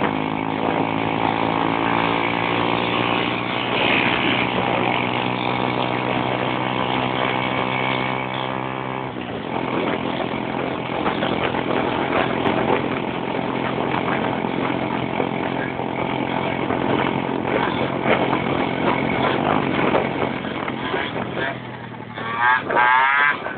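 Motorcycle engine running at a steady pitch for about nine seconds, then going rougher and noisier; near the end it revs in quick rising pulls.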